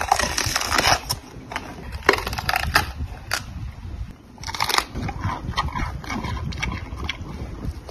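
Giant panda biting and chewing bamboo shoots: irregular crunching and sharp cracks as the fibrous stalk is bitten off and chewed.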